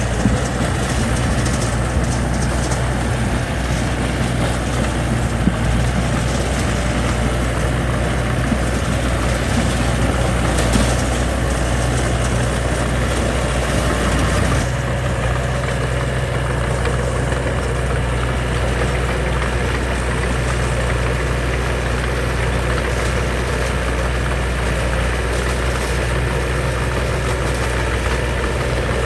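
Diesel engine of heavy construction machinery running steadily, with an abrupt change in its sound about halfway through.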